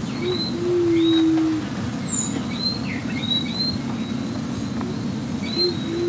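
Bridled quail-dove calling: a low, steady hoot held for about a second, like someone blowing over the top of a bottle, given about half a second in and again near the end. Short, thin chirps of other birds sound faintly in the background.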